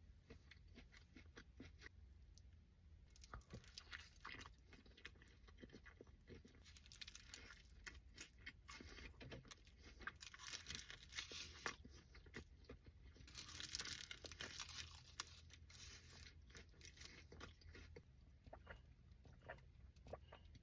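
A person chewing and biting into a burrito: a run of soft, crackly chewing clicks that comes in waves, busiest about two-thirds of the way through.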